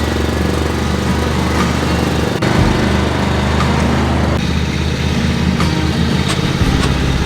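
A small engine running steadily, its pitch shifting a few times.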